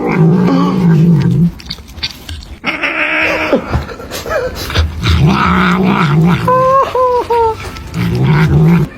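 A pet animal calling loudly in several long, wavering runs with short breaks between them.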